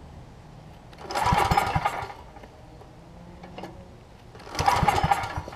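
Two pulls on the recoil starter of a Coleman generator's Briggs & Stratton Vanguard engine, each about a second of rope rasp with a few heavy compression thumps as the engine turns over. It does not catch on either pull.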